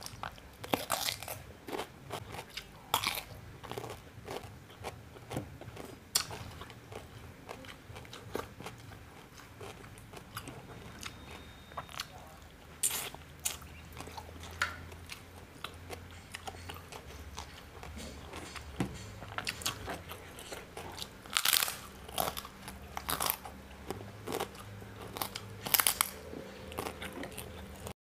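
Eating sounds of crisp bites and chewing, starting with a bite into a raw cucumber. Sharp crunches come scattered throughout, with a cluster of louder ones near the end.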